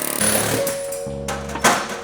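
Background music over short, choppy bursts of a pneumatic air tool working on truck suspension bushings, with a sharp metallic strike near the end.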